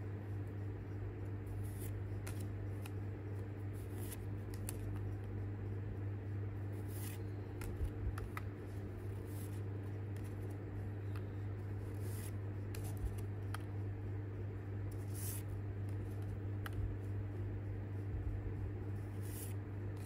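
Pokémon trading cards being slid one at a time through a stack held in the hand, giving brief papery scrapes and flicks every second or two, over a steady low hum.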